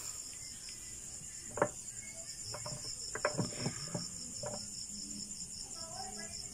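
Crickets chirping steadily in an even pulsing rhythm, with a few light metallic clinks from the gears and parts of an opened manual transmission being handled.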